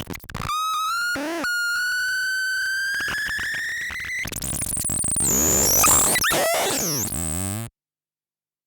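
Rumble Noise analog noise synth by Lefty's Sound Lab making glitchy electronic tones. After a few short chirps, a buzzy tone climbs slowly in pitch. It then breaks into noisy, warbling sweeps up and down and cuts off abruptly near the end.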